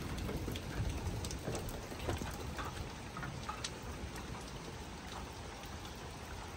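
Steady rain falling, with many small sharp taps of drops striking nearby surfaces.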